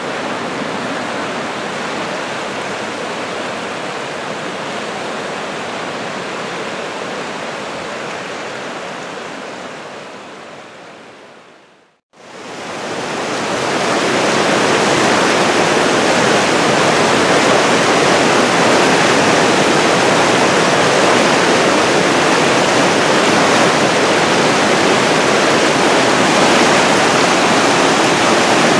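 Flood-swollen brook rushing over its banks, a steady noise of fast whitewater from a thaw and heavy downpour. It fades out just before the middle, then comes back louder as churning rapids pour past a boulder.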